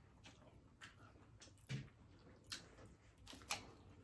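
Quiet, scattered clicks and taps of metal serving tongs picking up shrimp and food from a metal tray, about half a dozen sharp ticks spread over a few seconds.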